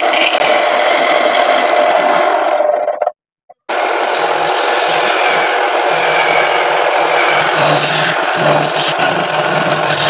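Wood lathe spinning a workpiece while a hand-held turning tool made from an old sickle blade scrapes into the wood, a steady loud rasping hiss. The sound cuts out completely for about half a second about three seconds in, then resumes.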